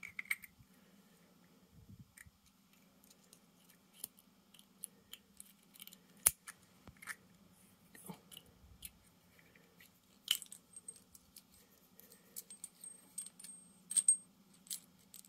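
Light metal clicks and taps from the brass parts of a propane tank's overfill protection device (valve cage, shaft, spring and disc) being handled and pushed in the fingers, with a few sharper clicks and a thin high ring in the last few seconds.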